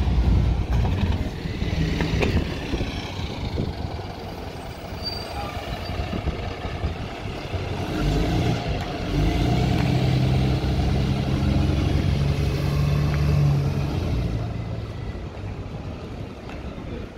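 Double-decker bus passing close by and driving away, its diesel engine loudest as it goes past. The engine then pulls with a steady note for several seconds before fading as the bus moves off.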